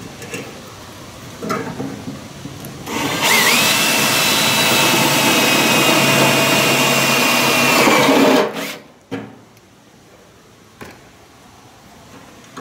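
Cordless drill with a step drill bit boring a hole through a microwave oven's sheet metal. After a brief softer start it runs hard for about five seconds with a steady high whine, then stops suddenly, followed by a couple of light knocks.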